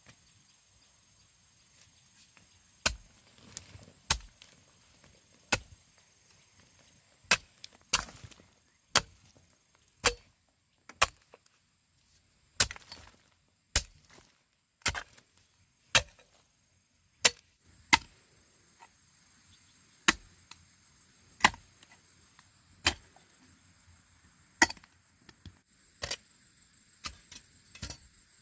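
Repeated sharp chopping blows on wood, roughly one a second with uneven gaps. Insects trill faintly and steadily in the background.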